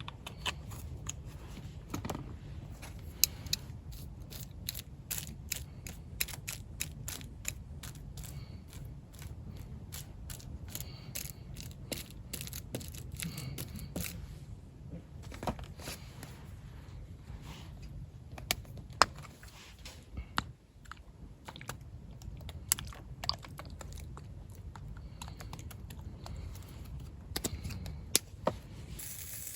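Irregular sharp clicks and taps, several a second at times, over a steady low rumble.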